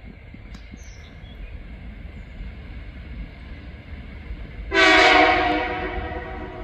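TasRail TR04 diesel locomotive's horn sounding for a level crossing: one loud blast of several tones together, starting abruptly about two-thirds of the way in and fading over the next second or two.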